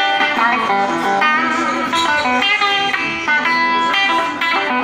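Blues music: an electric guitar playing a lead line of quick notes, some of them bent.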